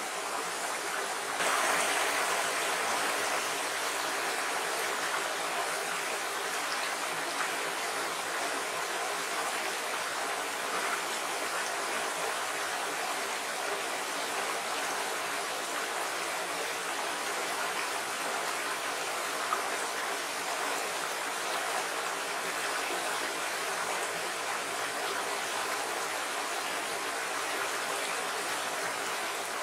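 Shallow, rocky stream rushing and rippling over stones: a steady, even rush of water that gets slightly louder about a second and a half in.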